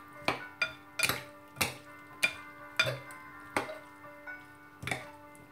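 Salad servers tossing a chopped salad in a large bowl, knocking against the bowl about twice a second, about ten knocks in all. Quiet background music plays underneath.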